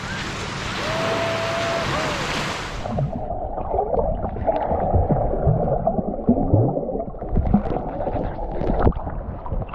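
Lake water lapping and splashing at the shoreline. About three seconds in, the microphone goes underwater and the sound turns abruptly muffled: low rumbling with irregular gurgling and bubbling from a swimmer kicking nearby.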